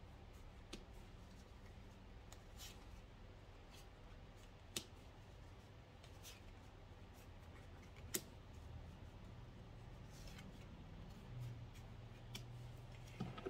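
Tarot cards dealt one at a time from a deck onto a tabletop: faint snaps and slaps of card on card and on the table, with two sharper clicks about five and eight seconds in.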